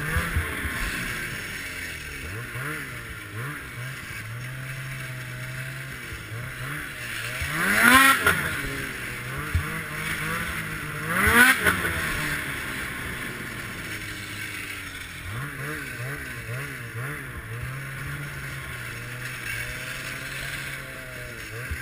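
Ski-Doo Summit X snowmobile's two-stroke engine running on the trail, with a steady drone broken by two sharp revs that rise and fall in pitch, about 8 and 11 seconds in.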